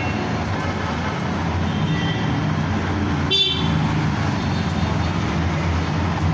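Steady background traffic noise with one short, high toot about halfway through.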